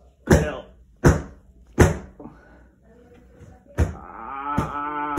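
Five sharp knocks or thumps, the first three loudest and about three-quarters of a second apart. From about four seconds in, a voice holds a steady, slightly wavering hum underneath.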